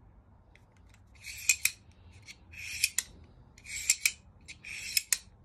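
Reate Exo gravity knife worked open and shut four times: each time the blade slides through the metal handle with a short rasp that ends in one or two sharp clicks as it locks.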